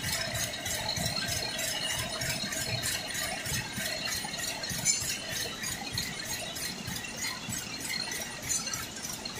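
Textile machinery running while the knitted shade-net fabric feeds onto its roller: a steady, fast, even mechanical rattle with a faint hum underneath.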